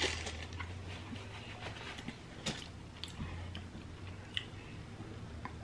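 Quiet eating sounds: faint chewing and small mouth clicks, with a few short sharp ticks scattered through, over a low steady hum.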